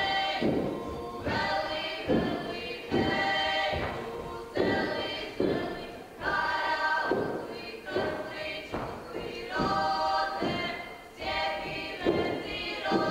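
A group of women singing folk song in sustained phrases, with the dancers' feet stamping and thudding on the wooden stage floor.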